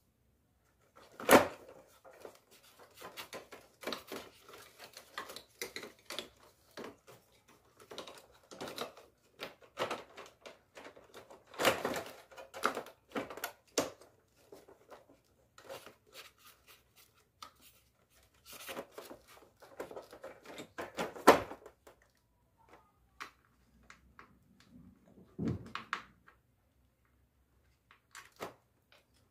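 Plastic clicks, knocks and rattles as the remote sensor assembly and its plastic bracket are handled and fitted back into a Daikin wall-mounted air conditioner's indoor unit. The sharpest knocks come about a second in and about two-thirds of the way through.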